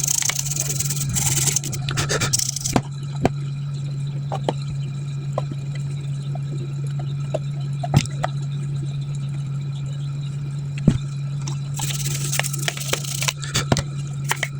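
Bursts of scraping with scattered sharp clicks, from hands and tools working on a plastic speaker casing, over a steady low hum. The scraping comes in the first few seconds and again near the end, with single clicks in between.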